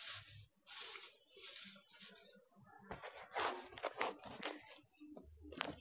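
Small folded sheets of white paper rustling and sliding against one another as they are gathered by hand, in several short bursts.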